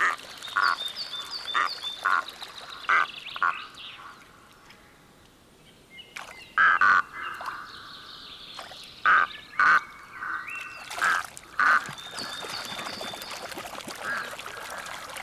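Red-throated loons giving repeated harsh, croaking calls: the resident pair's territorial warning at an intruding male. Near the end, water splashes steadily as the birds rush across the surface.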